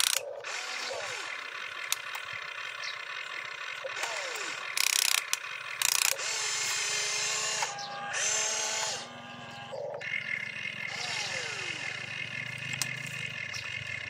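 A radio-controlled toy excavator's electric motors and plastic gearboxes whine as it slews its upper body and lifts its boom, the pitch sliding up and down as the motors speed up and slow. Two short, loud, harsh bursts come about five and six seconds in.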